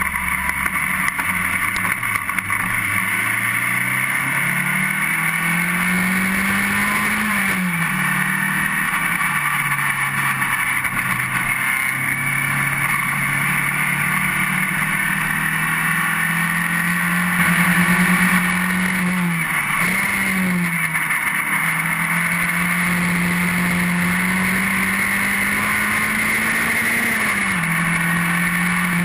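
Rover 1800cc four-cylinder engine of a Formula Sheane single-seater racing car heard from on board, pulling hard from low revs and climbing in pitch, with sudden drops in the note at each gear change a few times before climbing again.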